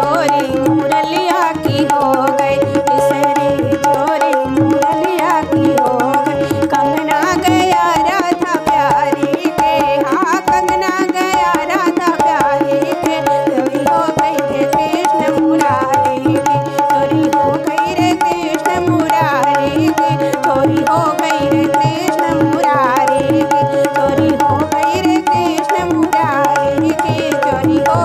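Tabla playing a steady rhythm together with harmonium, accompanying a woman singing a fagua, a Holi folk song.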